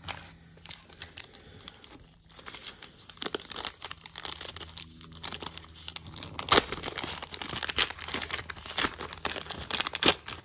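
Plastic wrapper of a 1991-92 Score hockey card pack crinkling as it is picked out of the box and torn open: a dense crackle that grows louder in the second half, with a few sharp rips.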